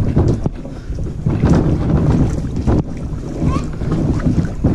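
Water sloshing and splashing from wading through a flooded dirt road, with wind buffeting the microphone.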